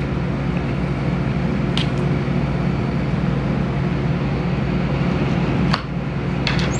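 Steady low mechanical hum under an even rushing noise, with a couple of faint clicks.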